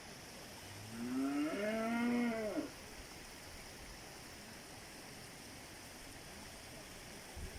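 A cow mooing once: one drawn-out call of about two seconds, starting about a second in, its pitch rising, holding and then dropping away.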